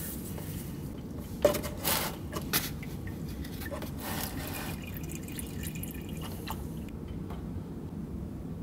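Hot engine oil draining from the oil pan of a 2001 Volkswagen Golf MK4 into a plastic oil jug used as a catch pan: a steady pouring trickle. A few short clicks and knocks sound in the first half.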